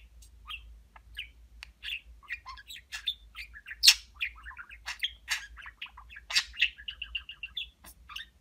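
Male budgerigar warbling: a continuous run of quick chirps, clicks and squeaky chatter, with one loud sharp click about four seconds in and a rapid string of about eight short repeated notes a little before the end.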